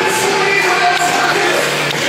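Cheer music playing loudly over a volleyball arena's loudspeakers, with the crowd singing along.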